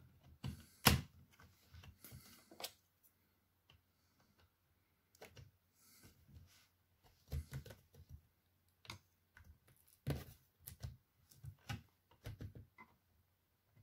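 Scattered light plastic clicks and taps as the laptop's plastic screen-bezel strip is pressed and snapped in under its lugs, the loudest about a second in and again about ten seconds in.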